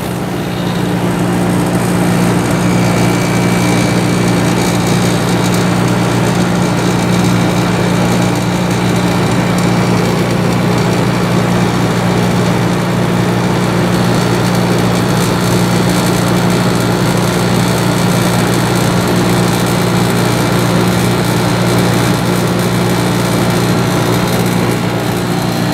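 Samsung 10,200 BTU window air conditioner running with its compressor on: a steady hum under the even rush of the fan.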